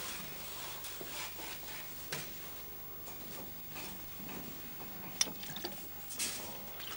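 Faint scattered clicks, taps and rustles of someone moving about and handling things in a small space, with a sharper click about five seconds in.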